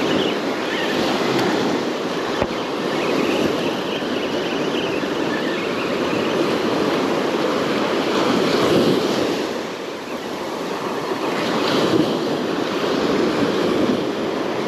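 Ocean surf breaking and washing up the beach, a steady rush that swells and eases, with some wind on the microphone.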